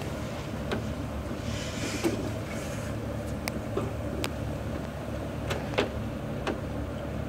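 A steady low mechanical hum throughout, with scattered light clicks and taps from hands working a coolant drain hose fitting on a radiator's quick-connect drain.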